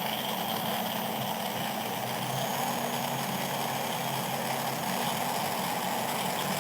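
Electric blender running steadily, whipping egg yolks, mustard, lemon juice and a first teaspoon of oil to start a mayonnaise-style emulsion.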